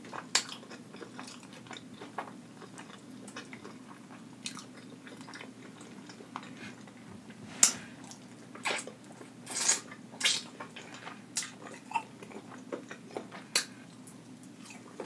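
Mouth sounds of a person biting into and chewing sauce-covered rotisserie chicken: irregular wet smacks and crunches, a few louder than the rest.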